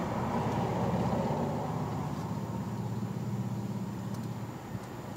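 A vehicle engine idling: a steady low hum that slowly gets quieter.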